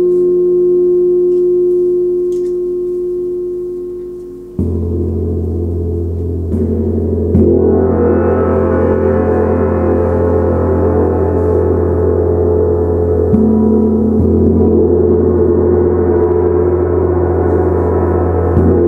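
A 70 cm Tibetan gong ringing. The ringing of an earlier stroke fades over the first few seconds. About four and a half seconds in, a soft mallet sets off a deep hum, which builds to a fuller, brighter wash of sound and stays loud.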